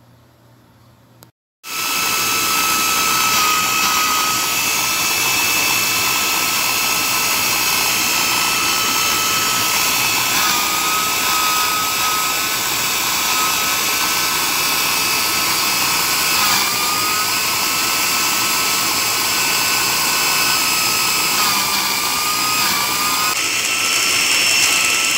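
Countertop electric blender running steadily, grinding small red chilies with garlic and rosemary leaves into a coarse paste: a loud, high motor whine that starts abruptly about two seconds in and dips briefly in pitch a few times.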